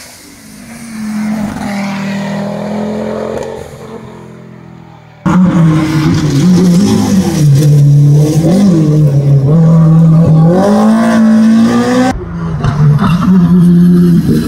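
Rally car engines at racing speed, in separate roadside clips. First a car is heard more faintly on approach. About five seconds in, a loud, close four-cylinder BMW E30 M3 engine revs up and down through the gears as the car passes. Near the end another rally car's engine runs loud.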